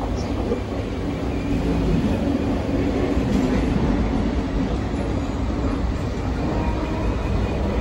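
Suburban EMU local train running, a steady rumble of wheels on track heard from aboard the moving coach, growing a little louder about two seconds in.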